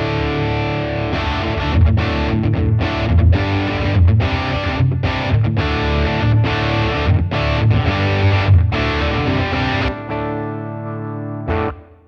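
Electric guitar through a J Rockett "The Dude" Dumble-style overdrive pedal. A held overdriven chord gives way to choppy rhythm chords, cut short again and again. Near the end the guitar rings out more quietly and stops.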